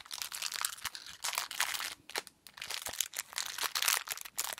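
Small plastic blind-bag packet crinkling as it is handled, in irregular crackles with a brief pause about two seconds in.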